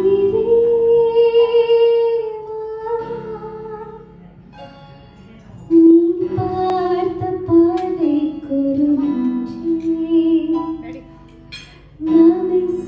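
A woman singing a Tamil film song into a microphone, with electronic keyboard accompaniment. She sings in phrases with long held, wavering notes, and there is a softer stretch a few seconds in.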